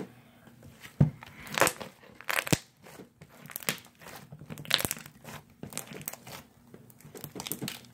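Homemade glue slime being squeezed and handled, giving off irregular crackles, clicks and pops.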